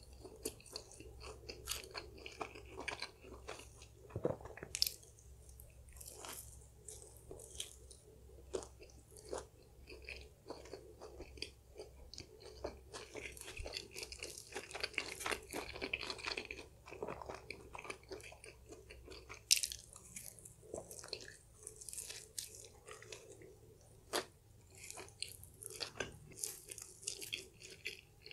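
Close-miked chewing and biting of stuffed-crust pizza, with many sharp crunches of the crust throughout.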